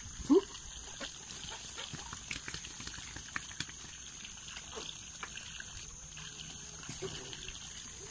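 Steady high-pitched insect chirring, with one short rising squeal-like animal call about a third of a second in and scattered faint taps.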